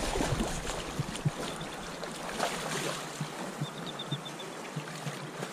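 Kenai River current rushing and lapping around a wading angler's legs, with small splashes and knocks as a hooked fish thrashes at the surface by the landing net.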